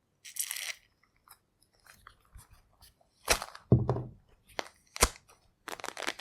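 Orange peel being torn away by hand: short tearing rips and sharp snapping cracks at irregular intervals, with a duller thump after the first loud snap and soft handling noises between.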